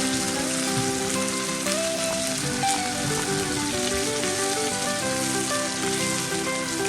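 Steak frying in a pan of hot melted butter, a steady sizzle. Background music plays along with it.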